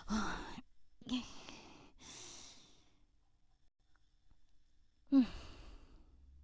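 A woman sighing in annoyance: four short, breathy huffs, the first three about a second apart and the last about five seconds in, each starting on a brief voiced falling tone.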